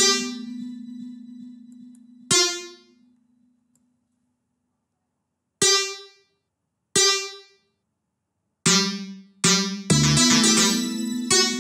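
Synth bass notes from FL Studio's Fruity DX10 'Bang Bass' preset: single notes sound one at a time with silent gaps between them, each ringing and fading within about a second, as they are clicked into the piano roll. Near the end the pattern plays back as a quicker run of notes.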